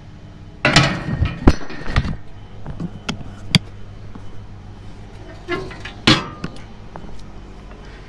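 Metal clatter and sharp clinks as the air cleaner end cover on a Caterpillar D11 bulldozer is worked loose and pulled off. The noise comes in two bursts, about a second in and again about six seconds in, with a single sharp click between them, over a steady low hum.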